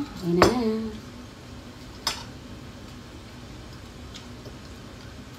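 A woman's voice for the first second. Then cutlery clicks against dishes as eating begins: a sharp click about half a second in, another about two seconds in, and a faint tick later, over a low steady hum.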